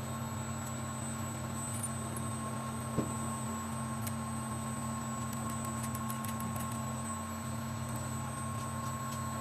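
Steady machine hum with several fixed low tones and a higher whine, and a single click about three seconds in.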